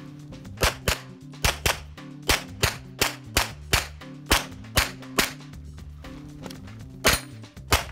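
Rapid 9mm pistol shots from a Canik TP9 SFx firing a stage string, mostly in quick pairs on each target, about fifteen in all, with a pause of about two seconds before the last few.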